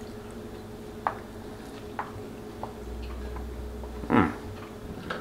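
A man biting into and chewing a slice of soft homemade white bread, with a few faint mouth clicks over a steady room hum. About four seconds in comes a short 'mm' falling in pitch.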